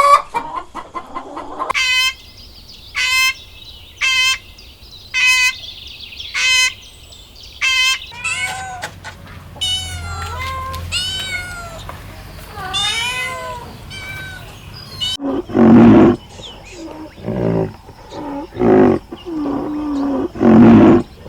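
A run of animal calls. First come short calls about once a second, then several calls that rise and fall in pitch, and from about fifteen seconds in, louder and deeper calls.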